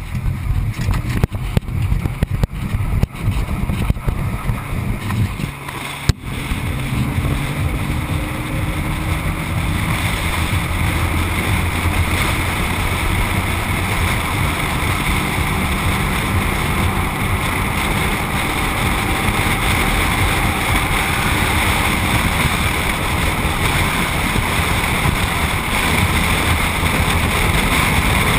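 Wind buffeting a camera mounted low on the side of a moving vehicle, with tyre and road noise beneath. The first several seconds are gusty and uneven; then the rush turns steady and louder as the vehicle picks up speed.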